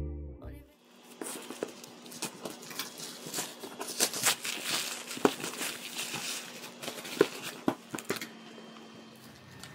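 Plastic mailer wrapping crinkling and tearing as a parcel is unwrapped by hand, then scissors cutting through packing tape on a cardboard box, with a few sharp clicks among the rustling.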